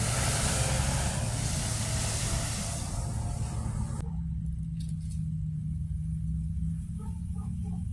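Car traffic on an icy, snow-covered street: a loud hiss of passing road noise, which changes abruptly about four seconds in to a car moving slowly through the intersection with a steady low engine hum.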